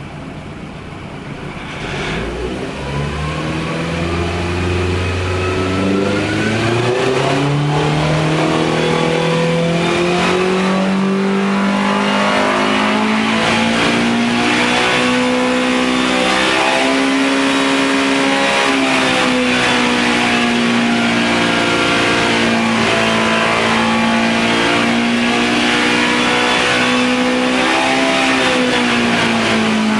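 2.5-litre Millington Diamond racing four-cylinder on a dyno, exhaling through its rally-car exhaust. It picks up about two seconds in and climbs steadily through the revs for about ten seconds. It is then held loud at high revs, with brief small dips, in a power run under load.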